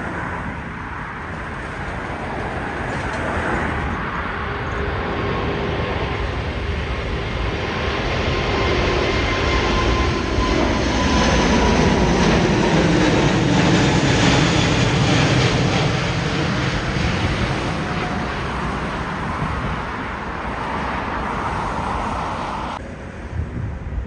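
Jet airliner flying past. Its engine noise builds to a peak about halfway, with the engine whine falling in pitch as it passes, then eases off and drops away abruptly near the end.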